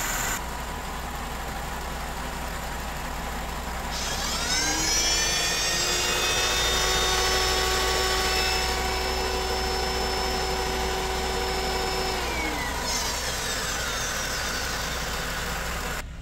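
Mercedes M272 V6 idling while its electric secondary air injection pump spins up with a rising whine about four seconds in. The pump holds a steady whine for about eight seconds, then winds down. The pump is running freely again after being stuck.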